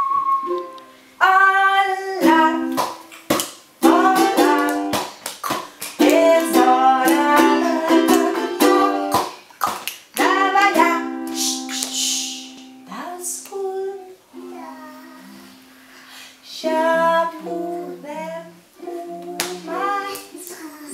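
A ukulele strummed in chords while a woman sings a children's song over it.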